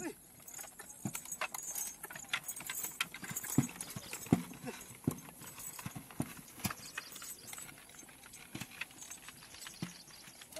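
Hooves of a horse pulling a loaded cart, clip-clopping on a dirt track as an uneven run of knocks.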